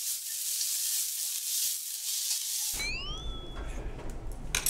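Fried rice sizzling and crackling in a hot pan, its bottom browning to a slightly scorched crust. The sizzle cuts off abruptly about two and a half seconds in. It is followed by a couple of short rising chirps and a few light clicks near the end.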